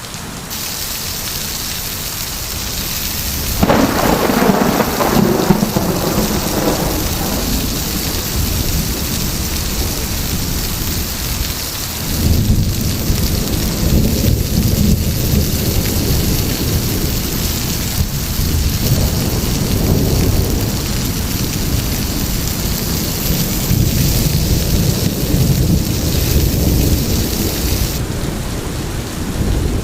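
Heavy rain falling steadily, with rolling thunder: a low rumble swells about three and a half seconds in, and another begins about twelve seconds in and rumbles on through the rest.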